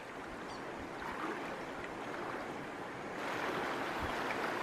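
Shallow stream running over a stony riffle, a steady rush of water that grows louder about three seconds in.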